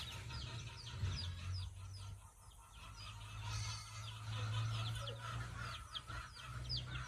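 Chickens: repeated short, falling peeps of chicks, a couple a second, with a hen clucking, over a steady low rumble.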